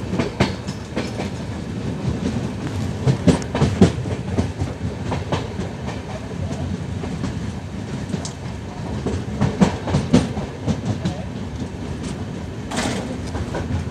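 Wheels of a moving passenger coach running on the track: a steady low rumble broken by groups of sharp clicks as the wheelsets pass over rail joints, heard through an open coach door.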